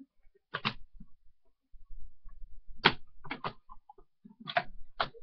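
A handful of short, sharp clicks and knocks as makeup items are handled, about six in all, the loudest about three seconds in.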